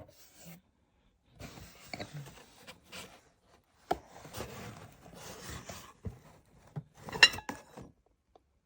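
Household objects being handled and moved about: irregular scraping and rubbing, several light knocks, and a brief clink of something hard about seven seconds in.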